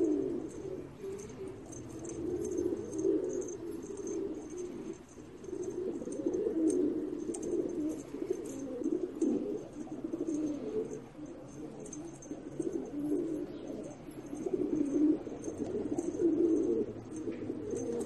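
A flock of Iranian fancy pigeons cooing, many low coos overlapping without a break and rising and falling in loudness.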